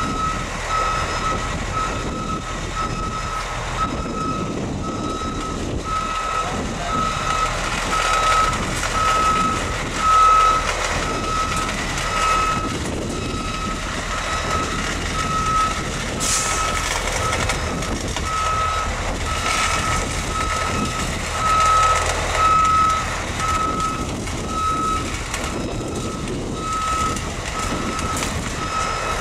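Back-up alarm beeping steadily at about one beep a second as a Caterpillar 140H motor grader reverses, with its diesel engine running low underneath.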